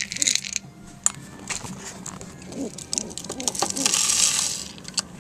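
Dry seed mix rattling and clicking in a plastic measuring cup as it is scooped and carried, with a burst of rustling about four seconds in.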